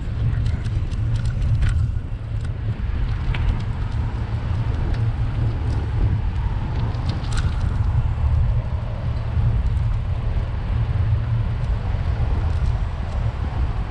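Steady low wind and road rumble on a microphone riding along on a moving bicycle, with scattered small clicks and rattles.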